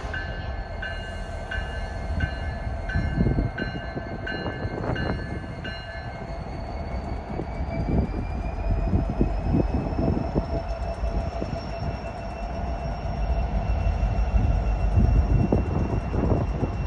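BNSF coal train with an EMD SD70MAC diesel leading, approaching with a steady low rumble and irregular rail clatter. For the first six seconds a bell rings about every three-quarters of a second. After that a high whine holds and slowly rises in pitch.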